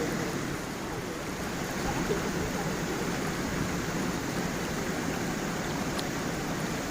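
A gentle stream and small waterfall: water flowing and splashing in a steady, unbroken rush.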